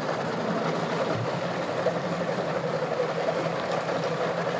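Outboard motor idling with a steady, even hum.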